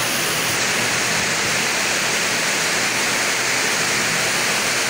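Steady, fairly loud hiss like static, even and unbroken, with no other sound over it: the recording's own background noise.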